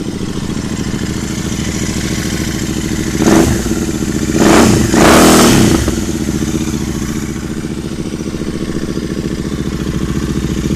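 Royal Enfield 650 parallel-twin motorcycle engine idling with an even, loping beat through its exhaust. It is revved briefly about three seconds in, then twice more in quick succession a second later, before settling back to idle.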